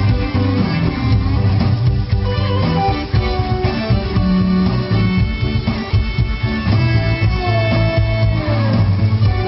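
Live music played on an electronic keyboard with a laptop backing track, a guitar sound to the fore over a steady bass.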